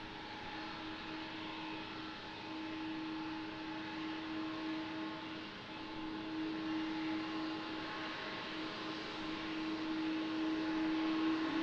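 Boeing 777-200ER's twin turbofan engines whining steadily at low thrust as the jet taxis, growing gradually louder toward the end.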